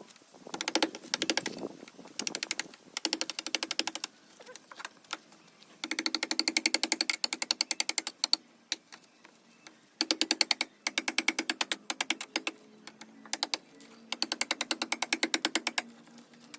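A percussive power tool hammering on metal in rapid bursts of one to two seconds, about a dozen sharp knocks a second, stopping and starting again several times.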